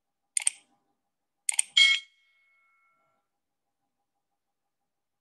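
Subscribe-button animation sound effects: mouse clicks about half a second in and again about a second and a half in, followed by a short notification bell chime that rings out briefly.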